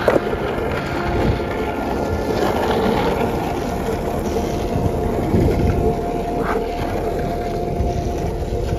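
Longboard wheels rolling over rough asphalt: a steady rumble, with a thin steady hum running under it from about three seconds in.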